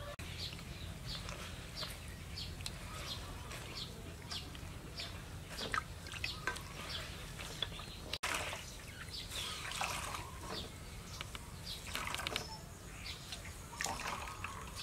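Water sloshing and dripping as a cloth bag of grated coconut is squeezed and kneaded in a metal basin of milky water, pressing out coconut milk. Birds chirp in the background.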